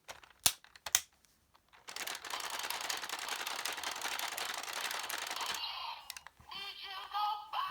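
Bandai Geartlinger toy blaster being worked with a Zenkai gear: two plastic clicks as the gear goes in, then a rapid rattling for about four seconds as the gear is spun. Near the end the toy's speaker starts its electronic sound effect.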